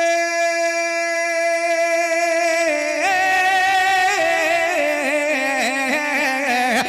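A man's voice singing a naat solo, unaccompanied: one long, steady held note for the first few seconds, then a wavering, ornamented melodic run with vibrato.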